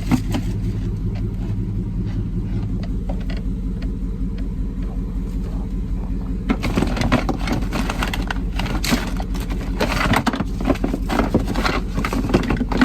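A car engine idling with a steady low hum. From about halfway through, the clicks and rustling of someone rummaging around inside the car are heard over it.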